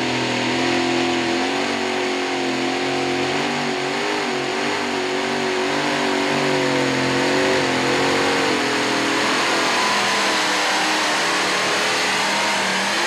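Supercharged engines of a modified pulling tractor running at full throttle while dragging the weight sled. A loud, steady high-revving drone whose pitch wavers slightly as the engines load and unload.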